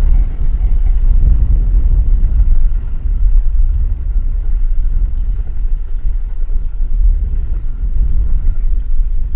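Train passing on the line, a loud steady low rumble.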